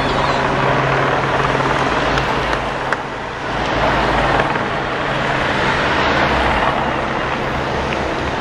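Race-convoy team cars and motorcycles driving past on the road, their engines and tyres swelling as each passes, over a steady low drone of helicopters overhead.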